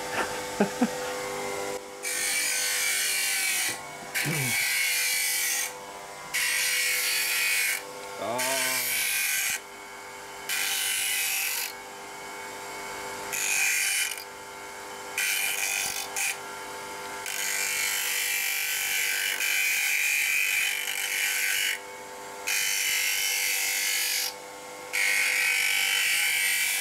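Bench grinder running with a steady hum while a piece of hacksaw blade is pressed against the wheel in repeated short passes, each a high grinding hiss of about one to two seconds with brief breaks between.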